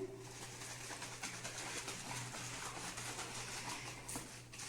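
Bottle of homemade carbonated grape soda being shaken: a faint, fairly steady crackling hiss of sloshing, fizzing liquid.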